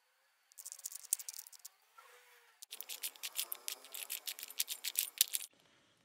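A plastic 3x3 Rubik's cube being turned fast by hand, its layers clicking and rattling in quick runs: a short burst, then a longer, denser run that stops abruptly near the end.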